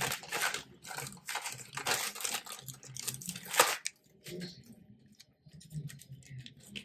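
Plastic courier mailer and packaging rustling and crinkling as the contents are pulled out and handled, with the loudest rustle about three and a half seconds in, then quieter handling of a small zip-lock bag.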